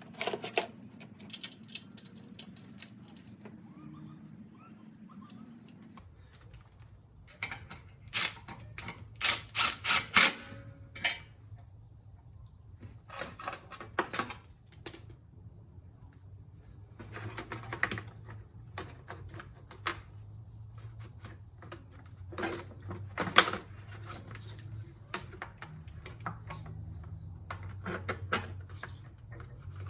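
Irregular metallic clicks and clinks of hand tools and small engine parts being handled while working on a lawn mower, in bunches with short pauses, over a faint steady low hum.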